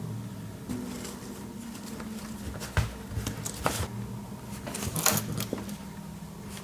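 Hands handling a Swiss Army knife and a length of lanyard cord: a few sharp clicks and short rustles, the loudest a little after halfway, over a steady low hum.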